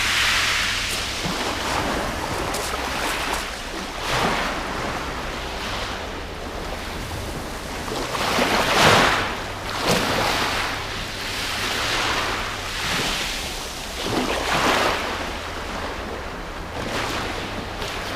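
Waves washing in and breaking on a shingle beach, a hissing surge every two to three seconds.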